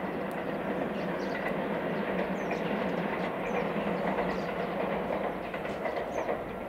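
JR West 227 series three-car electric multiple unit running along the line, a steady rumble of wheels on rail that swells slightly as it passes.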